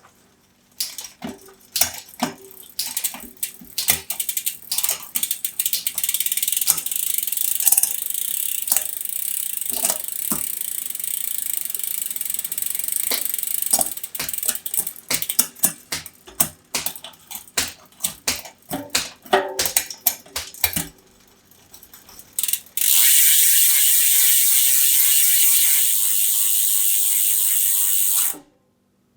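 Ratcheting clicks from a bicycle's mechanism being turned, sometimes sparse and sometimes coming fast, over a faint hiss. About 23 seconds in, a loud steady hiss takes over and cuts off suddenly near the end.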